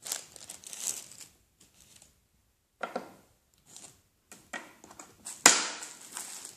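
Plastic packaging crinkling and rustling in irregular bursts as kit parts are handled and set on a table, with the loudest, longest crinkle about five and a half seconds in.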